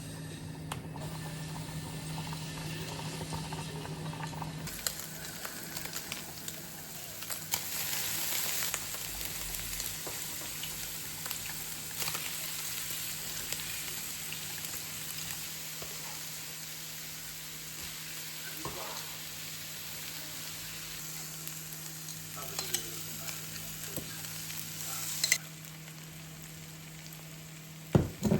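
Food sizzling in a frying pan, a steady hiss that starts about five seconds in and drops away a few seconds before the end, with occasional light clicks of a utensil. A steady low hum runs underneath.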